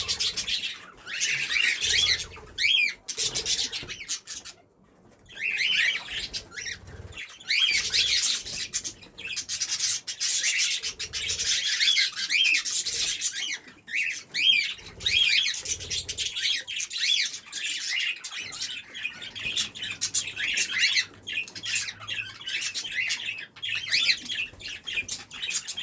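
Pet budgerigars and cockatiels chirping and chattering: a dense, continuous stream of short, quick-gliding calls, with one brief lull about five seconds in.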